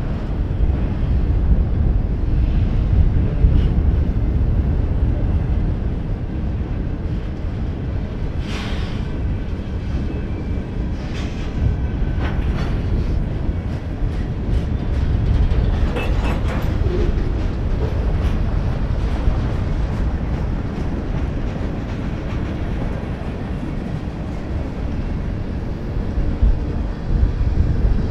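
A Union Pacific manifest freight train rolling past: a steady low rumble of steel wheels on rail, with many wheel clicks over the rail joints.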